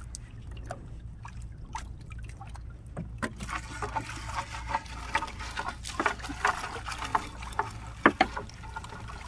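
A fishing net being hauled by hand over the wooden side of a small boat. Water splashes and drips off the mesh, with scattered clicks and knocks of the net and its floats against the hull. These get busier from about three seconds in, over a steady low hum.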